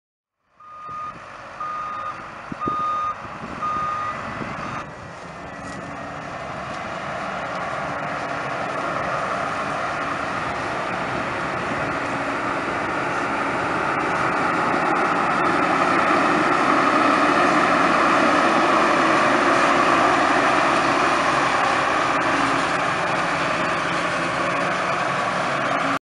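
A vehicle's reversing alarm beeps four times, then the diesel engines of a farm tractor and combine harvester run steadily, growing louder over the first half and then holding.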